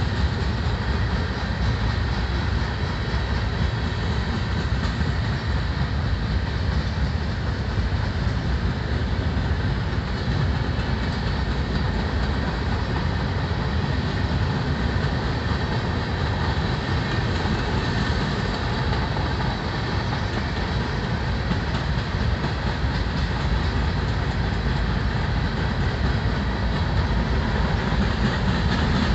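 Cars of a mixed freight train rolling past at a steady speed: a continuous low rumble of steel wheels on the rails.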